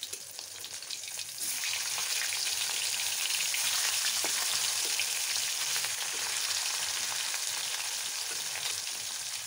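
Catla fish pieces coated in turmeric and chilli sizzling as they shallow-fry in hot oil in a kadai. The sizzle grows suddenly louder about a second and a half in, while a spatula turns the pieces.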